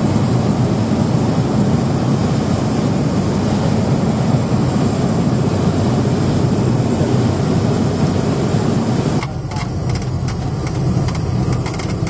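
Cessna 208B Caravan's single turboprop engine and airframe heard from inside the cabin during the landing rollout on a grass strip: a loud, steady noise. About nine seconds in it drops suddenly and turns quieter, leaving light rattles and knocks.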